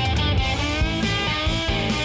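Background music: a rock track with guitar over a steady beat.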